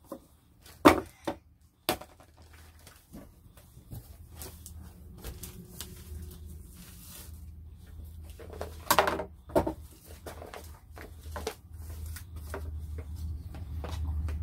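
Scattered light knocks, taps and rustling as a small pumpkin and toys are handled on a plastic toy table covered with a thin sheet, with a sharp knock about a second in and a cluster of knocks past the middle. A low rumble grows near the end.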